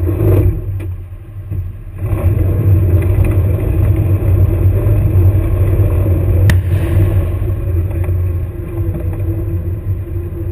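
Airsoft combat vehicle's engine running with a steady low rumble, getting louder about two seconds in as the vehicle pulls away and drives forward. A single sharp click sounds about two-thirds of the way through.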